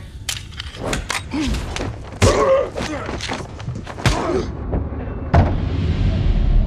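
Film fight sound effects from a struggle over a pistol: a quick run of blows and thuds, with grunts between them. The heaviest hits come about two seconds in, about four seconds in, and near five and a half seconds.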